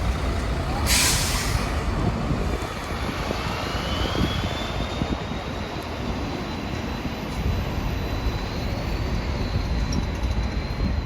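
Diesel bus pulling away: a short hiss of air about a second in as the air brakes release, then a loud turbocharger whistle rising in pitch and holding over the steady running of the engine as it accelerates away.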